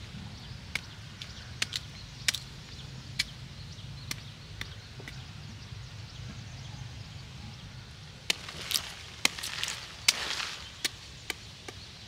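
Machete chopping leaves off freshly harvested cauliflower stalks: sharp, scattered strikes that come thicker near the end, mixed with leaf rustling, the loudest about ten seconds in.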